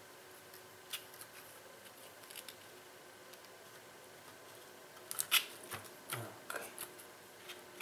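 Small plastic clicks and taps from a plastic pry tool working a ribbon-cable connector in an opened laptop: a light click about a second in, then a cluster of clicks and taps around five to seven seconds, the loudest among them.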